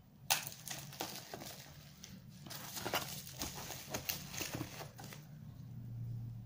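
Bubble wrap and plastic packaging crinkling and rustling under hands, in irregular crackles that stop about five seconds in, leaving a steady low hum.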